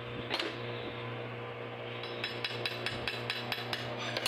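A quick, even run of light taps, about six a second, over a steady hum, with a single knock near the start and a louder knock at the very end.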